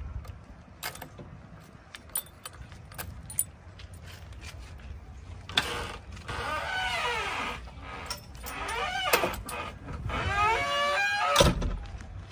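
Backhoe loader's diesel engine running with a few metallic clanks, then a whine that rises and falls in pitch for several seconds from about halfway, as the engine revs and the hydraulics work.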